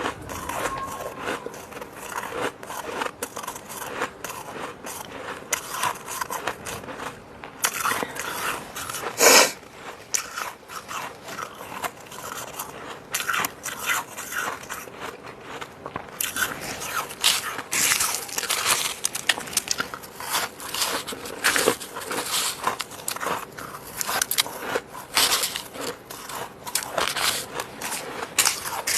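Fluffy freezer frost, grown with a humidifier, being bitten and chewed close to the microphone: dense, irregular crunching, with one loud crunch about nine seconds in.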